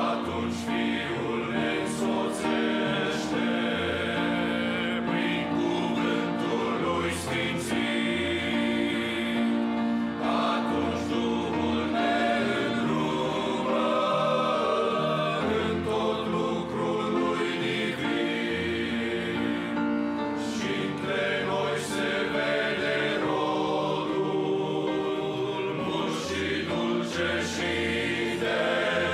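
Male choir singing a hymn in Romanian in many parts, sustained and continuous.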